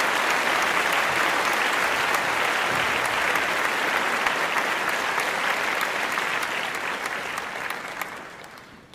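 Audience applauding, a dense patter of many hands clapping that fades away near the end.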